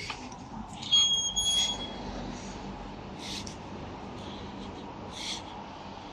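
A heavy wooden door is pulled open by its brass lever handle, with a loud click and a short high squeak about a second in. A steady hiss of open air follows, with a couple of short scuffs.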